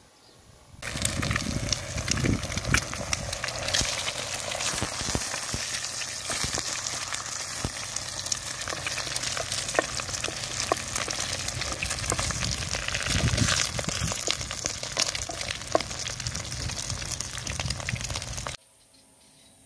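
Eggs and sausage slices sizzling in hot oil in a pan over a wood fire, with frequent sharp pops. The sizzle starts suddenly about a second in and cuts off suddenly near the end.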